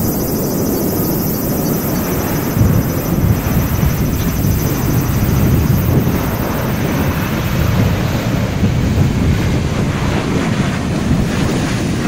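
Strong gusty wind buffeting the microphone, the loudest sound throughout, over the twin turboprop engines and propellers of a Dash 8 Q400 rolling along the runway after landing, with a thin high engine whine that fades near the end.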